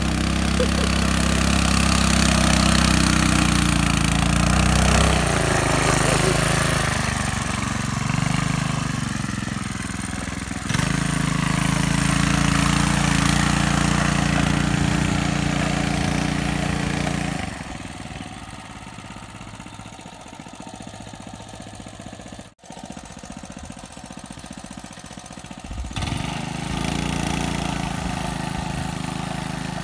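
KT196 go-kart's 196cc engine running under throttle while the kart ploughs through muddy pond water, with splashing spray. Its pitch dips and rises about a quarter of the way in. It drops much quieter for several seconds past the middle, then comes back loud near the end.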